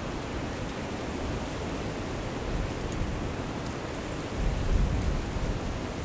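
Steady outdoor rushing noise of wind, with a low gust of wind buffeting the microphone for about a second past the middle.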